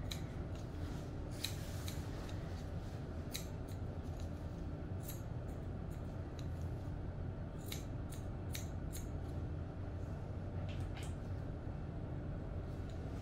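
Steel grooming shears snipping through a dog's hair around its head and ear: short, crisp snips at irregular intervals, a dozen or so in all, over a low steady background hum.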